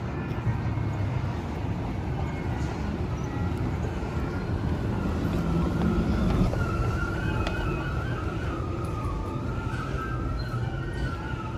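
Street traffic rumble with an emergency-vehicle siren wailing, its pitch wavering up and down, coming in about halfway through.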